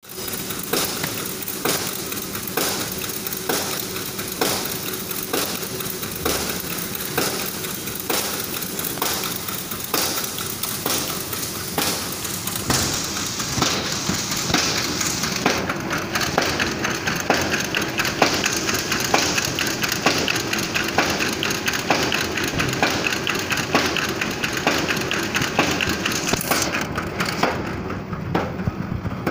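Automatic paper bag making machines running, a steady mechanical din with a regular clacking about three times every two seconds. The clacking becomes less distinct about halfway through.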